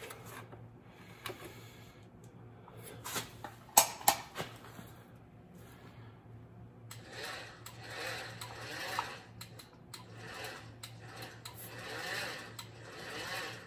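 Sheet metal being worked through a hand-cranked Magnum RM12 bead roller, the rollers pressing and turning the panel's edge over a hard bottom die. A few sharp metal clicks come a few seconds in. In the second half a scraping rasp of the sheet swells and fades several times as it is fed through.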